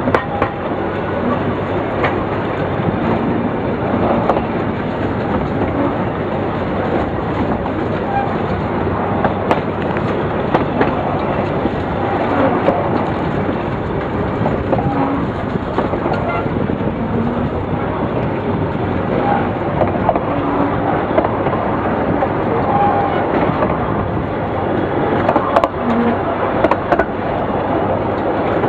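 750 mm narrow-gauge passenger train climbing a grade, heard from an open carriage window: a steady rumble and clatter of the wheels on the track, with scattered sharp knocks over the rail joints.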